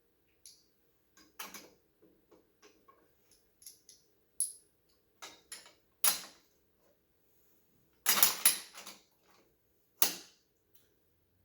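Small parts of a die-cast scale crane model clicking and clinking as they are handled and fitted on, in irregular clicks with a louder cluster about eight seconds in.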